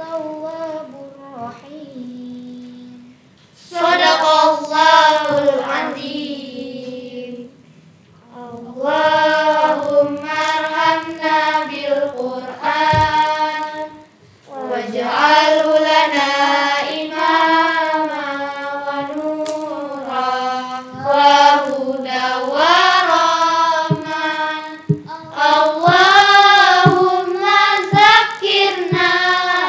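Girls' voices chanting Arabic in long melodic phrases with wavering, ornamented pitch, in the style of Qur'anic tartil recitation, with short pauses between phrases.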